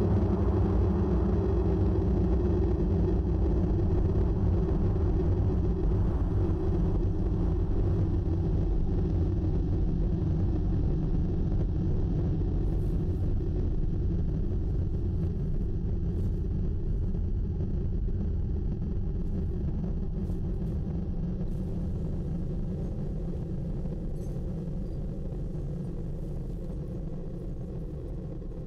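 A low, steady droning rumble that slowly fades out.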